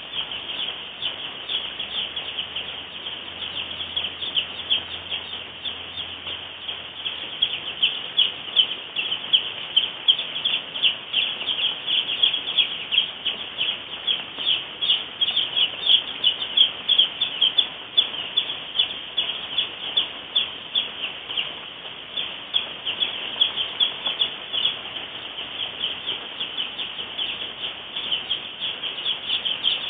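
A large flock of two-day-old Ross 308 broiler chicks peeping without a break: a dense chorus of high, rapid cheeps.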